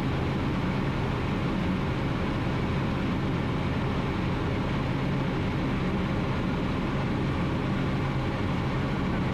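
Ultralight aircraft's engine and propeller droning steadily in flight, heard from inside the cockpit, with a constant low hum.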